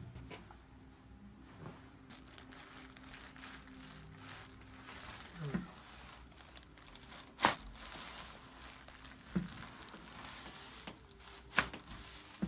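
Crinkling and rustling, like paper or plastic, as a person shifts on a chiropractic table, with two sharp knocks about seven and eleven and a half seconds in.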